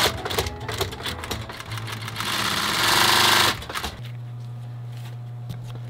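Industrial leather sewing machine with a roller presser foot stitching a leather boot upper: rapid, dense clattering of the needle mechanism, with a louder rushing noise for just over a second about two seconds in. From about four seconds in only a steady low hum remains.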